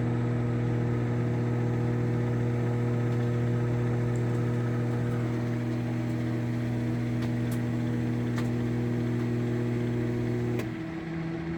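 Sharp Carousel SMC1662DS microwave oven running on 50% power: a steady, heavy mains hum with a few faint pops from the chicken heating inside. About ten and a half seconds in the heavy hum drops out as the magnetron cycles off for the reduced-power setting, and a lighter hum runs on.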